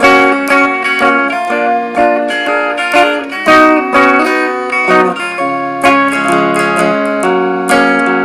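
Guitar music: many plucked notes and chords in quick succession.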